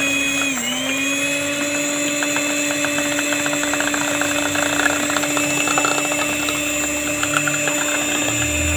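Electric hand mixer running at a steady speed, its beaters whirring through eggy cake batter in a steel bowl to mix in the baking powder. The motor pitch dips briefly about half a second in, then holds, with a light rattle of the beaters against the bowl.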